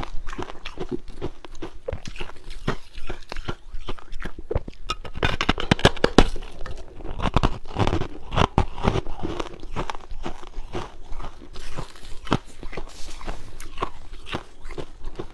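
A person biting and chewing hard refrozen ice, a dense run of irregular crunches.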